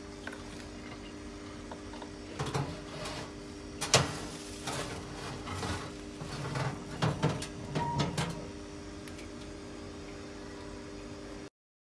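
Ceramic baking dish set down and shifted on the metal tray of an open oven: a run of clunks and scrapes, the loudest a sharp knock about four seconds in, over the steady hum of the oven's fan. The sound cuts off suddenly just before the end.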